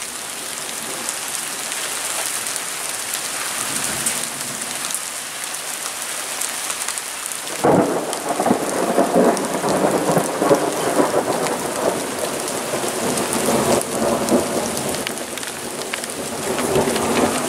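Steady rain falling, with thunder that breaks in suddenly about halfway through and keeps rolling and rumbling.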